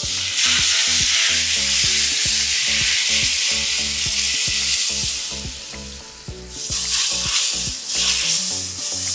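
Watery ragi rava dosa batter sizzling loudly as it is poured from a ladle onto a hot iron dosa tava. The hiss eases off midway, then surges again twice near the end as more batter hits the pan.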